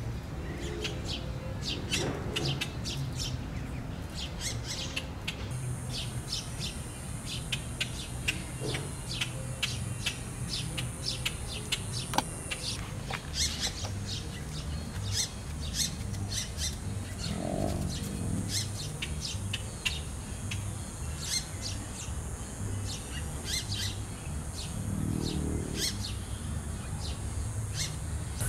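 Small birds chirping, many short high chirps over and over, over a steady low rumble.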